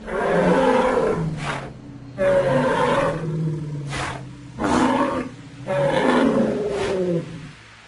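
Designed Styracosaurus sound effect: four loud, rough animal calls in a row, each about one to one and a half seconds long, with short gaps between them.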